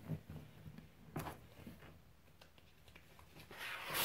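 Quiet handling of a spiral-bound paper notebook: a few faint paper rustles and light clicks, then a louder rustle near the end as a page is turned.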